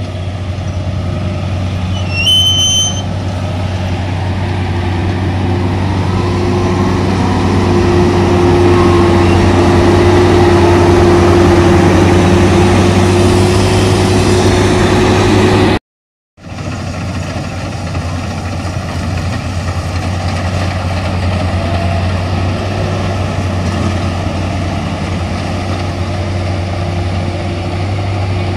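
Maxxi Bimo NDR 102L rice combine harvester running steadily as it harvests, its engine and threshing drive giving a constant low hum. A whining tone swells for several seconds in the middle, and the sound cuts out for a moment about halfway.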